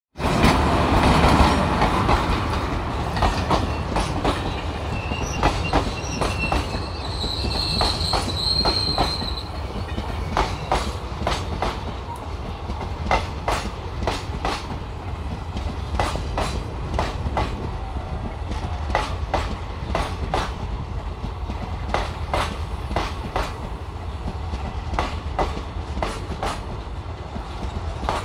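Express passenger train coaches rolling past close by, the wheels clicking over rail joints in a steady clickety-clack over a low rumble, loudest in the first couple of seconds. A brief high wheel squeal sounds about eight seconds in.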